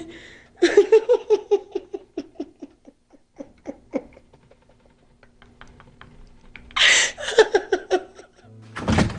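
A woman laughing into her hand in a run of breathy pulses that fade away. About seven seconds in comes a sharp gasp and another shaky run as the laughter turns to sobbing. Sustained dramatic music comes in near the end.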